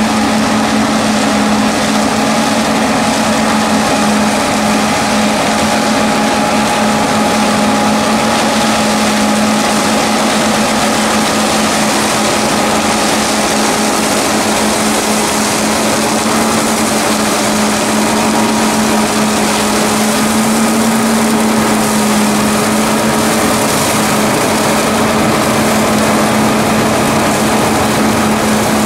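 Fendt 720 Vario tractor running under load with its Herder mowing/suction combination at work, the flail mower head cutting grass and the suction fan drawing the clippings through the hose. A steady machine drone with a constant hum-like tone.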